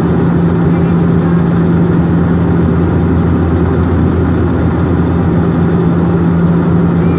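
Steady drone of a turboprop airliner's engines and propellers in cruise, heard inside the cabin: a constant low hum over a rushing noise, with no change in pitch.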